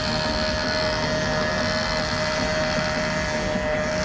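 Handheld petrol engine cutter running at steady high revs, a constant engine tone held without change.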